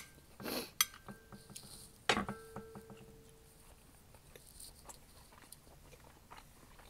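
Metal tongs clink against a ceramic plate several times in the first two seconds, two of the strikes leaving a short ringing tone. Then comes soft chewing of a bite of inari sushi.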